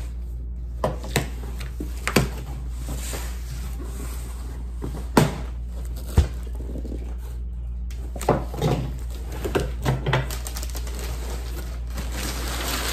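A cardboard shipping box being opened: scattered knocks, taps and scrapes as the box and its flaps are handled, then packing paper starting to rustle near the end.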